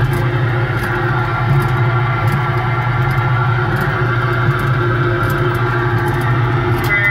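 RG Mitchell 'Mitch the Dumper Truck' kiddie ride running, its speaker playing guitar-style music over a steady low hum. Near the end a high beeping tone comes in.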